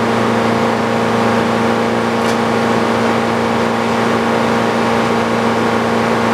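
Sawmill engine running at a steady pitch and speed.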